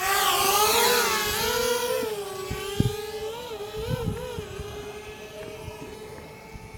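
DJI Spark quadcopter's motors and propellers spinning up for takeoff: a whine that rises sharply at the start, then hovers with small wobbles in pitch and grows fainter over the following seconds.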